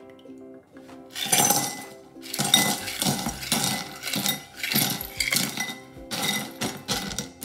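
Ice cubes clattering and clinking into a glass bowl in a run of repeated bursts, starting about a second in, over soft background music.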